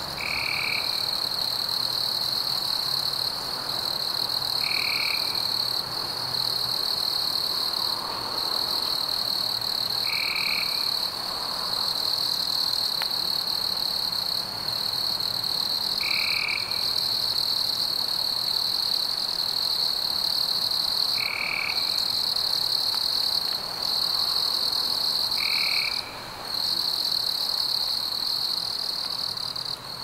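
Night forest ambience: a continuous high-pitched trill of night insects or frogs, breaking off briefly a few times, with a short higher call repeating about every five seconds, six times over.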